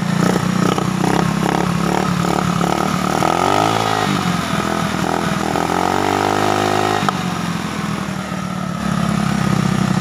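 Rusi Venus scooter's GY6 four-stroke engine running with an uneven, pulsing idle while its new diaphragm carburettor is being tuned. About three seconds in the throttle is opened by hand at the carburettor, and the engine pitch rises steadily for a few seconds, then drops back to idle suddenly.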